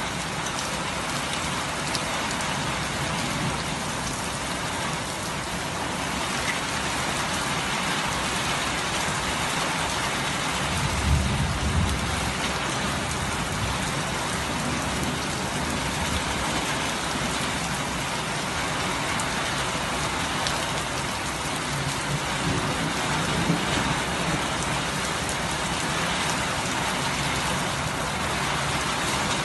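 Steady, heavy rain falling and splashing on surfaces, an even hiss throughout. A brief low rumble comes about eleven seconds in, and a fainter one a little after twenty seconds.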